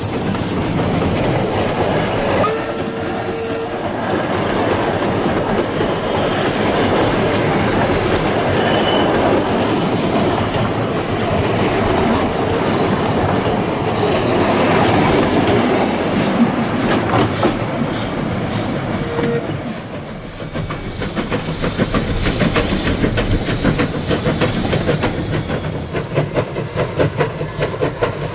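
Wooden carriages of a narrow-gauge steam train rolling close past, wheels clattering over the rail joints, with two brief wheel squeals. About twenty seconds in, the sound changes to the NM-class steam locomotive working, its exhaust chuffing in a quick, regular beat.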